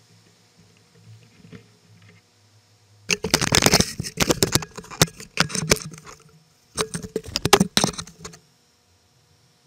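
Handling noise of a camera mounted on top of a kayak's sail mast as the mast is gripped and turned: two loud spells of rattling, knocking and scraping, the first about three seconds long, the second shorter after a brief pause.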